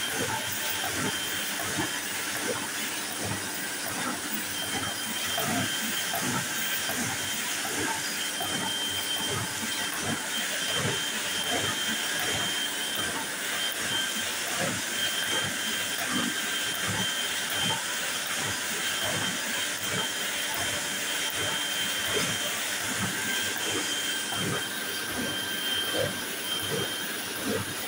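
Heidelberg offset printing press running and printing, a steady hiss with a fast, irregular clatter from its sheet-handling mechanism and a thin high whine that comes and goes.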